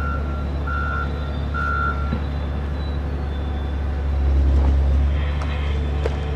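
Mining haul truck's reversing alarm beeping about once a second, stopping about two seconds in, over the steady low rumble of its engine, which swells briefly a little past halfway.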